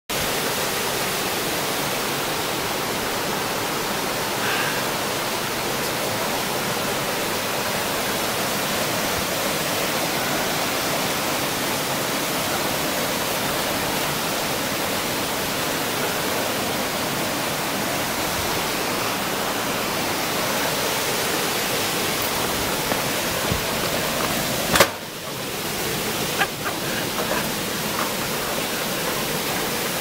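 Steady rush of a mountain stream cascading over granite boulders in small waterfalls. One sharp knock near the end, followed by a few faint clicks.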